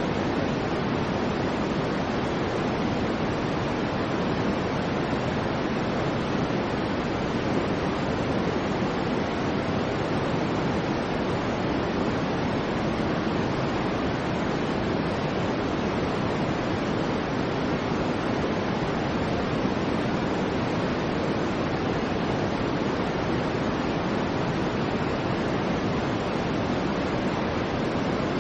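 Soft white noise for a baby's sleep: a steady, unbroken hiss that sounds soft and dull rather than sharp, with most of its weight in the low and middle tones and no high fizz. There are no swells, pauses or separate sounds.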